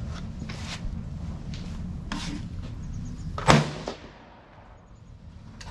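A single loud rifle shot about three and a half seconds in, ringing out briefly, with fainter sharp cracks of shots earlier on.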